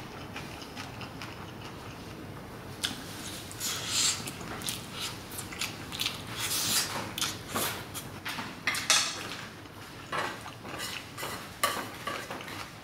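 A person eating: biting and chewing meat off a skewer, with chopsticks clicking and scraping on a metal griddle tray. The sounds come in about three seconds in as a string of short, irregular clicks and smacks.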